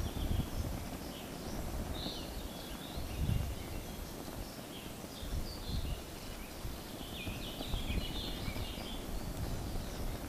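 Wind gusting on the microphone in an uneven low rumble, with small birds chirping in short calls here and there.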